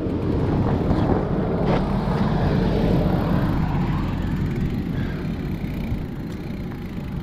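Wind buffeting the action camera's microphone as a mountain bike rolls over grass, a steady low rumble, with a couple of light knocks from the bike.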